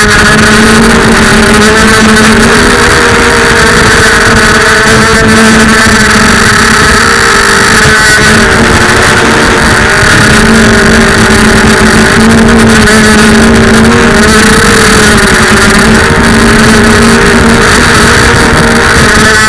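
FPV racing quadcopter's brushless motors and propellers whining steadily and loudly, the pitch wavering up and down as the throttle changes, with wind rush over the drone.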